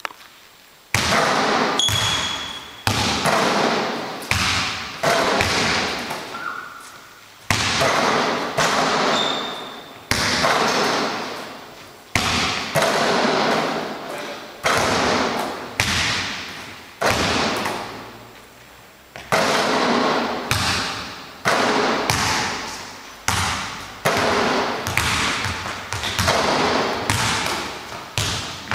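Basketballs thudding in quick succession, about one a second, as they bounce on the gym floor and strike the backboard and rim. Each thud trails off in a long echo of the big, hard-walled hall.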